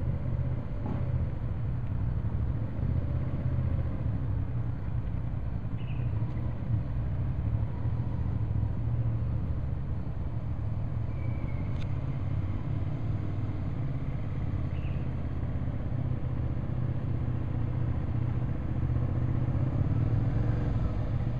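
Motorcycle engine running at low speed some distance away, over a steady low rumble, growing a little louder near the end as the bike rides closer.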